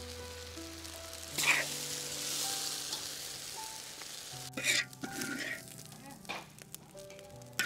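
Stir-fried noodles sizzling in a large wok as a metal spatula scoops them out into a steel bowl: a rush of sizzling about a second and a half in, then sharp scrapes and clinks of the spatula against the wok and bowl in the second half.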